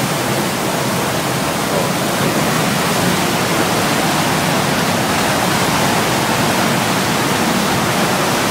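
Steady rushing noise of wind on the microphone and the churning wake water behind a moving passenger ferry.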